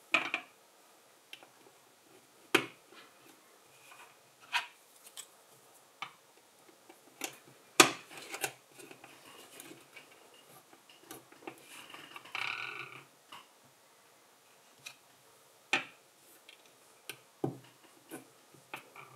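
LEGO plastic bricks being handled and pressed together, giving sharp clicks every second or two. There is a short rattle of loose plastic pieces a little past halfway.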